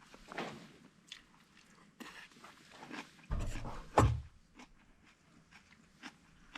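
Close-up scattered crunches and clicks, with a louder bumping, crunching stretch from about three seconds in that peaks in a sharp knock about four seconds in.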